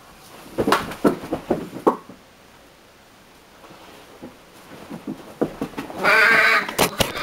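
A person's voice making a few short nonsense noises about a second in, then a loud, drawn-out cry lasting about a second near the end.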